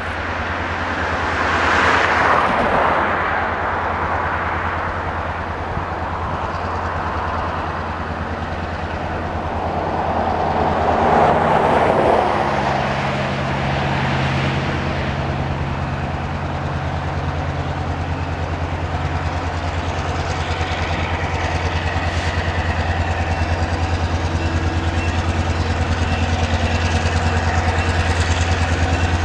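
Diesel locomotive engine of Rainier Rail 5082 approaching, a steady low rumble throughout. Its engine tones build and grow louder over the second half as it comes closer. Two broad rushing swells come about 2 and 11 seconds in.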